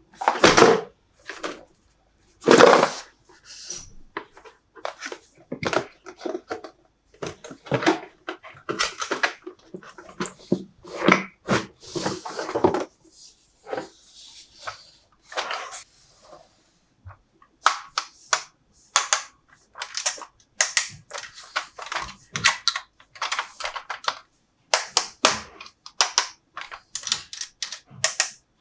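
Hard plastic toy pieces being handled, knocked and clicked together, with a stretch of rustling near the middle and a dense run of sharp clicks in the second half.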